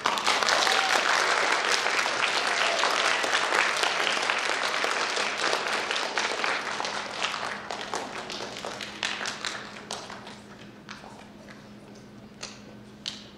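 Audience applauding: the clapping starts abruptly, stays full for about six seconds, then thins out to scattered claps and dies away near the end.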